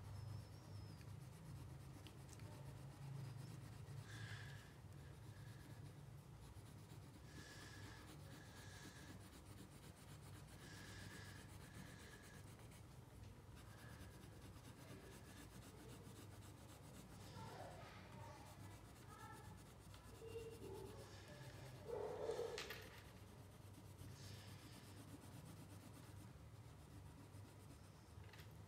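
Faint scratching of a wax crayon rubbed back and forth across paper while colouring, in short strokes over a steady low hum. A brief louder sound comes about three-quarters of the way through.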